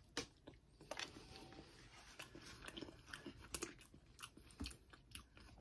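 A person biting into and chewing a battered fried dill pickle: faint, irregular crunching of the fried coating.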